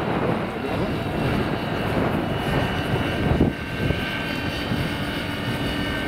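Large electric scale model helicopter (Vario Schweizer 300C) flying: steady rotor noise with a thin steady whine, and gusty wind rumbling on the microphone.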